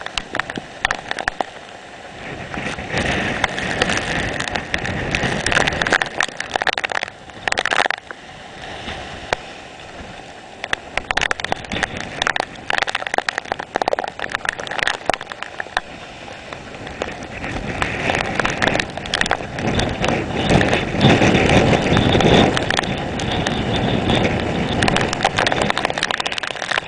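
Typhoon wind blowing hard and buffeting the microphone, with rain crackling. The noise swells and falls in gusts, with the strongest gusts in the last third.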